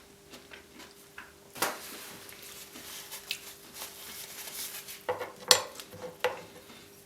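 Close-miked eating sounds with cutlery clinking against a dish: a run of crackly handling of food in the middle, then a few sharp knocks near the end, the loudest about five and a half seconds in.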